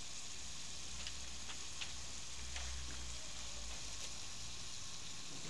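Sugar syrup boiling in a small saucepan over a gas flame: a steady hiss with a few faint pops. The bubbles have thickened and are slow to burst, the sign that most of the water has boiled off as the syrup nears temperature for a pâte à bombe.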